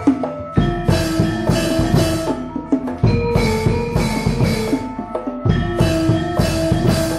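Gamelan music for a wayang golek puppet dance, with drums and sharp wooden knocks under a melody of struck pitched keys. It runs in short phrases that start afresh with a loud stroke about half a second in, near the middle and again near three quarters of the way through.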